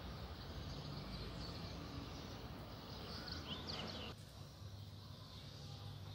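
Outdoor street ambience: a steady low hum with a few quick bird chirps a little past the middle. The background drops abruptly about four seconds in.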